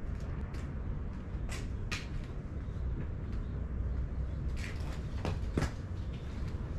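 A steady low rumble with a handful of short clicks and knocks scattered through it, the sharpest two close together about five seconds in.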